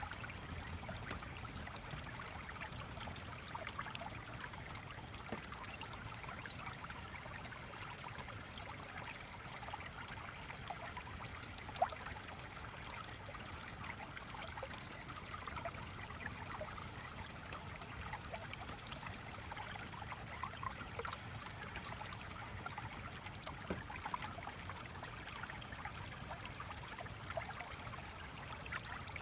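Small stream flowing steadily, with scattered faint ticks and one sharper click about twelve seconds in.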